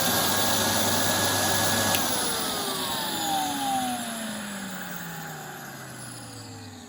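Numatic Henry HVR200 vacuum cleaner motor running steadily, then switched off about two seconds in and winding down with a steadily falling whine. Its bearings are a little bit crumbly (worn).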